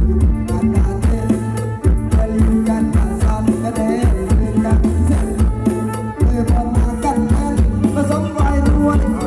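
Loud music with heavy bass notes and a steady drum beat, played through a large outdoor cinema PA system for a sound check.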